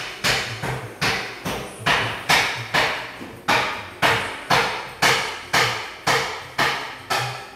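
A steady series of sharp percussive knocks, about two a second, each dying away quickly.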